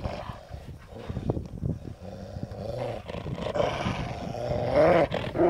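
Dog play-growling during a tug-of-war over a rope toy, a wavering growl that builds and grows louder toward the end.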